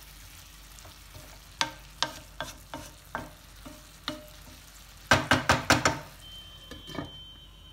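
A metal spoon knocking and scraping in a cooking pan of spinach and potato curry over a faint sizzle: a few scattered taps, then a quick run of loud metal clatters about five seconds in.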